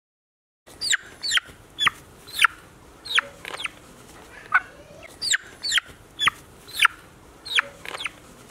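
Chicken peeping: a string of short, high calls, each sliding steeply down in pitch, a bit over one a second.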